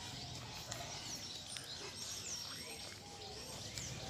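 Birds chirping: short, high, falling chirps about once a second over a steady low outdoor background noise.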